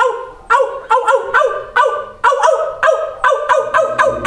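A man imitating a small dog's barking: a rapid string of short, high yaps, about three a second.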